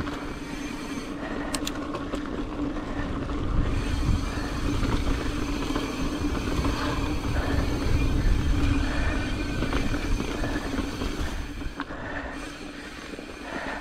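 Pivot Firebird mountain bike being ridden down a rocky trail: wind rushing over the GoPro's microphone and tyres rolling over rock, with a steady whir underneath and a couple of sharp clicks about a second and a half in. It eases off near the end.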